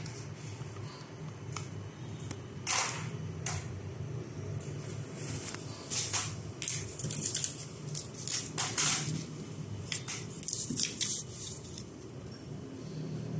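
Cookies-and-cream ice cream being eaten with a plastic spoon from a bowl: a series of short scrapes and crunches, over a steady low hum.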